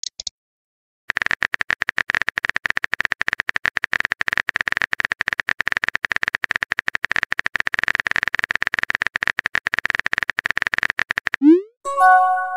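Texting-app sound effects: a fast, even run of simulated keyboard typing clicks. About eleven and a half seconds in the clicks stop for a short rising swoosh as the message is sent, followed by a brief chime of a few held tones.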